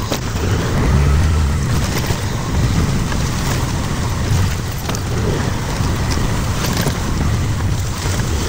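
Auto-rickshaw running through city traffic: a steady, low engine rumble mixed with road and wind noise.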